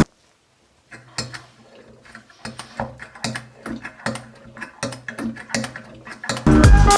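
Small metal mechanism clicking and ratcheting by hand: irregular sharp clicks, about two or three a second, starting about a second in.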